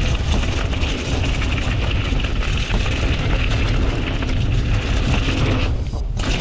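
Wind rushing over the microphone of a camera on a moving mountain bike, a heavy low rumble with a constant patter of small rattles and knocks from the bike on the trail. The rush drops briefly near the end.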